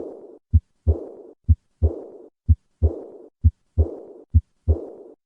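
Heart sounds of aortic regurgitation, about one beat a second: each beat has a short first heart sound, then a second heart sound followed at once by a high-pitched diastolic murmur that fades away (decrescendo).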